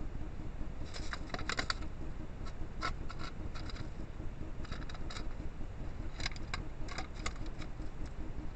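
A rat scrabbling and scratching as it climbs: several clusters of quick, sharp clicks and scratches over a steady low hiss.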